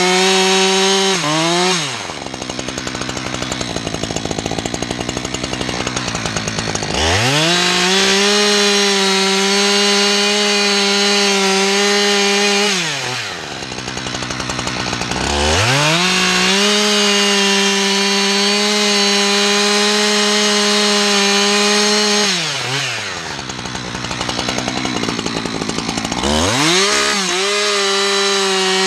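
Husqvarna two-stroke chainsaw cutting through a felled pine trunk. It runs at a steady full throttle in the cut, drops back to idle three times for a few seconds, and revs up again each time.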